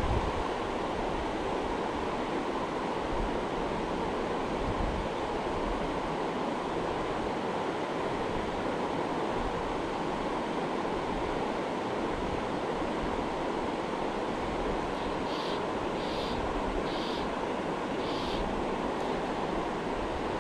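Steady rush of a salmon river's flowing water, running high after rain. Near the end come four short high-pitched sounds, about a second apart.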